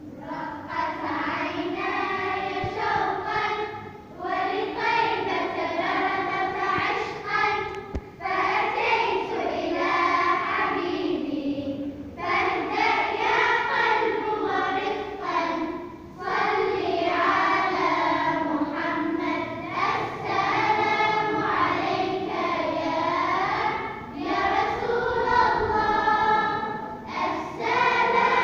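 A high voice singing long, melodic, ornamented phrases of several seconds each, with short breaks for breath between them.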